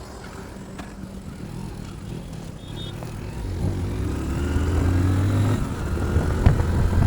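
Road vehicle engine running with a low, steady hum that grows louder from about halfway through.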